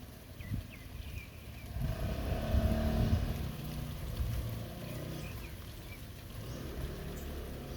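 Steady rain, with a motor vehicle's engine swelling up and fading away as it passes, loudest about two to three seconds in. A few short bird chirps sound near the start and again past the middle.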